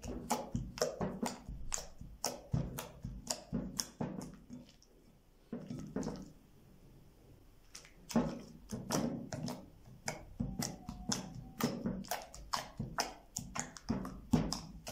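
Hands squeezing and poking slime, giving a run of wet clicks and pops, several a second, with a short lull about halfway through.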